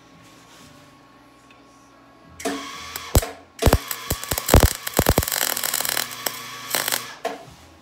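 Electric welding arc crackling and popping in a burst of about five seconds, starting a little over two seconds in, as a bead is run over a crack in metal.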